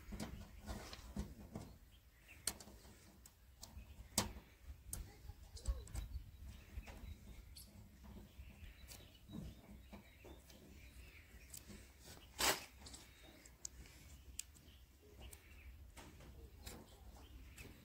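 Quiet handling sounds of a vinyl sticker being pressed and smoothed onto a painted steel tractor panel: light rustling with scattered sharp clicks and taps, the loudest about twelve seconds in.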